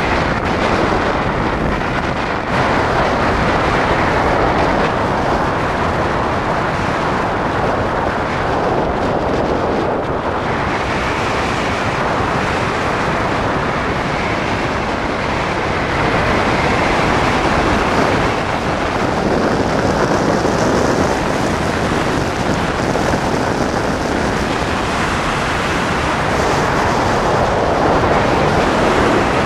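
Loud, steady wind noise on a microphone fixed to the wing of a hang glider in flight: the rush of air over the mic at flying speed.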